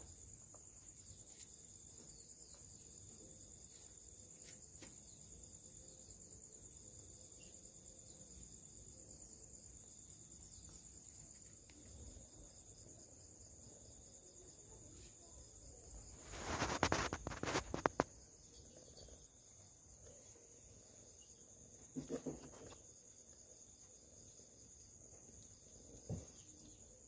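Crickets chirping in a steady high trill. A louder burst of rustling noise lasting about a second and a half cuts in a little past halfway, and a shorter one follows a few seconds later.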